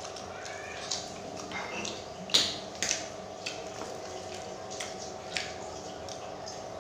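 Close-up eating sounds of fried tempeh being chewed: a scattered run of sharp, crisp crunches and mouth clicks, the loudest a little over two seconds in, over a steady low hum.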